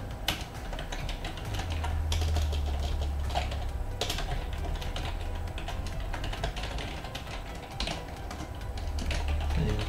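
Typing on a computer keyboard: a run of quick, irregular keystroke clicks with short pauses between words, over a low hum.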